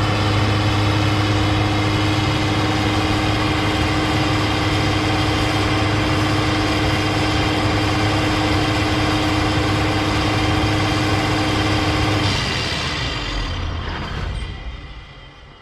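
Diesel engine idling steadily, then cutting out about twelve seconds in and winding down with a falling whine over the last few seconds.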